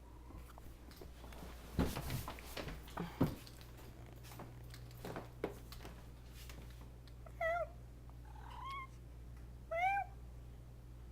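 Domestic cat meowing three times in the second half, short calls about a second apart. Earlier, a cluster of knocks and clatter about two to three seconds in.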